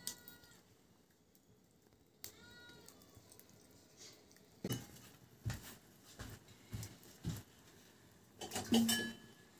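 A cat meowing twice, short arching calls near the start and about two seconds in. Then a run of dull knocks, and near the end a louder clatter with a brief metallic ring.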